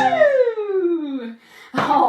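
A voice holds one long note that slides steadily down in pitch, ending the song. After a brief pause, clapping starts just before the end.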